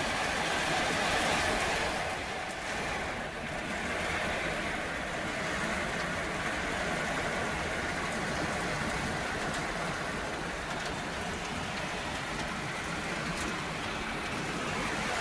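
Rain shower falling steadily, a constant hiss, a little louder in the first couple of seconds.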